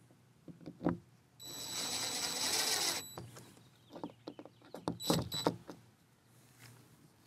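Small power driver driving screws: one steady high whine lasting about a second and a half, then a shorter burst about five seconds in, with handling clicks and knocks between.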